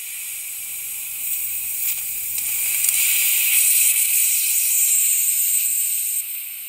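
Steady high hiss of chlorine gas escaping from a ruptured rail tank car, swelling over the first few seconds and easing slightly near the end.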